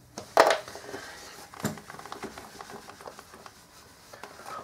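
A whiteboard being wiped clean by hand: a low rubbing, scrubbing noise with small scrapes. A short, sharp noise about half a second in is the loudest sound.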